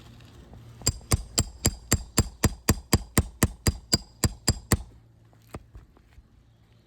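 A hammer striking a metal roofing tool about sixteen times in a steady rhythm, roughly four blows a second, each with a bright metallic ring. This is driving a nail puller or roof snake under a shingle to get at the nails. A couple of faint knocks follow.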